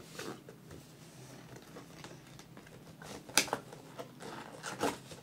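A cardboard toy box being handled: faint rustling and scraping, with a sharp click about three and a half seconds in and another near the end.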